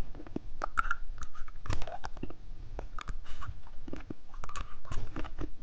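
Scattered light clicks and brief rustles of plastic candy packaging being handled and opened.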